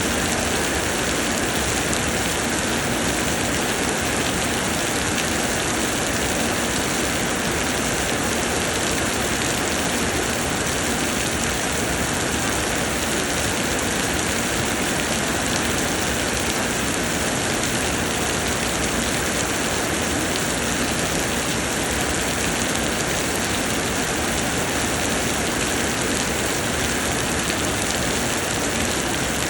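Heavy summer rain pouring down steadily, a dense even hiss of drops on the ground and plants.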